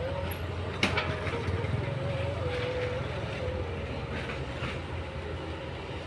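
Distant heavy earthmoving machinery, a Kobelco excavator and a crawler bulldozer, with their diesel engines running steadily under a wavering whine. A sharp metallic knock comes about a second in, and a few lighter clanks follow through the middle.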